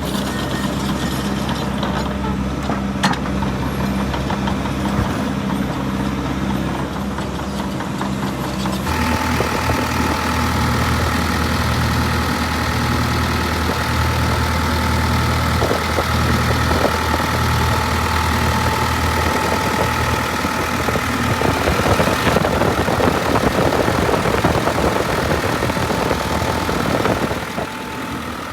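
Case CX240B tracked excavator's Isuzu diesel engine running steadily, then about nine seconds in it steps up to a louder, busier sound with a steady whine on top. Near the end it drops back down.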